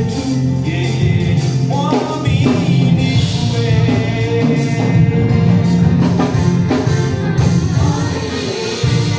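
Live gospel worship song: a singer over a band with drums.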